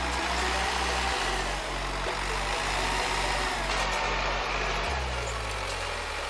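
A heavy vehicle's engine running steadily, its pitch shifting about a second in and sliding lower near the end, with background music.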